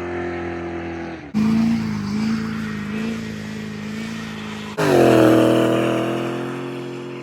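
A car engine running in three abruptly cut segments. The pitch and loudness jump sharply about a second and a half in and again near five seconds in, and the sound fades a little within each segment.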